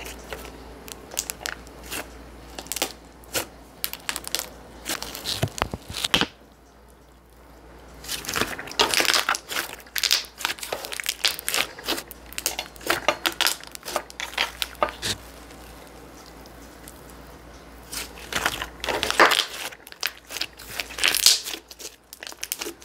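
Thick, ultra-creamy slime being kneaded, folded and pressed by hand, giving runs of sticky clicks and crackles in bursts, with a couple of quieter pauses.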